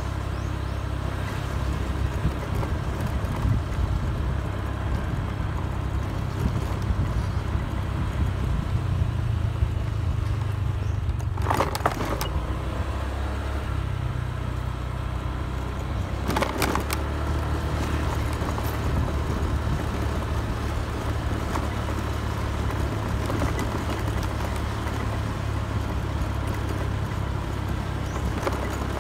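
Motorcycle running steadily while being ridden along a road, heard from on board as a constant low rumble with road and wind noise. Two short sharp rattles stand out, about twelve seconds in and again about five seconds later.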